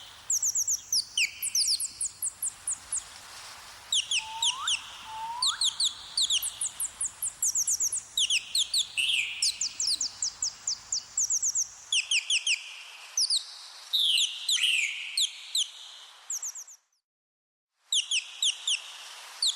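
Small birds singing: fast trills of short, high, thin chirps, each sweeping downward, with two lower rising whistles about four to five seconds in. The sound cuts out for about a second near the end, then the chirping resumes.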